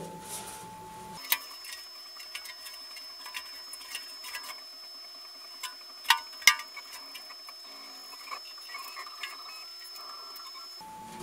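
Trabant 601 steel fuel tank being shaken and turned by hand to coat its inside with liquid tank sealer. Irregular clicks and knocks sound as the tank is handled, with two louder knocks about six seconds in.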